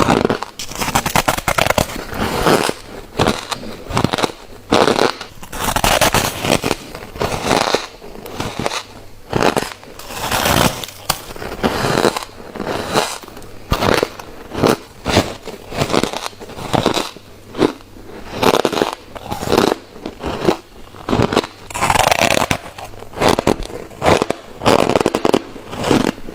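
Close-up bites and chews of refrozen white freezer frost: crisp crackling crunches in clusters every second or two.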